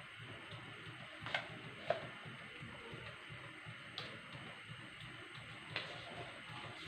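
Four light clicks and taps of kitchen utensils over a faint steady hiss, as salt is added to the chicken marinade.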